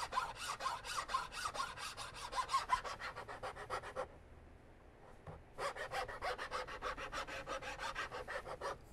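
Flat file stroked rapidly back and forth across a wooden rifle stock, a rhythmic rasping at about five or six strokes a second, taking the wood down a couple of thousandths at a time to fit it. The filing pauses for about a second and a half midway, then picks up again.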